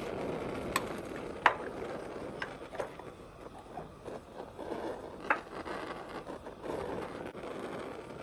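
Wooden banku stirring stick working a thin corn-dough mixture in an aluminium pot, scraping along the pot with a few sharp knocks against its side, the loudest about a second and a half in. A steady rush of wind on the microphone runs underneath.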